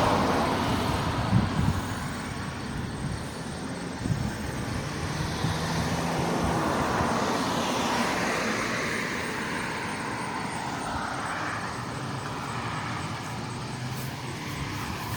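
A fixed-wing airplane flying over: a steady engine rush whose pitch slides slowly over several seconds, swelling slightly about eight seconds in.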